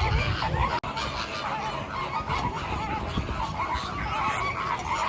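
A flock of flamingos honking, many short calls overlapping continuously, with a split-second gap just under a second in.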